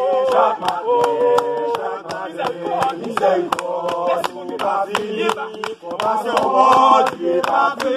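A group singing a worship song together, with steady hand clapping keeping the beat.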